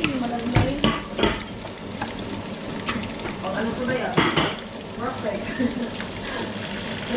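Food sizzling in a frying pan while a spatula scrapes and knocks against the pan as it is stirred, with several sharp knocks, the loudest about four seconds in.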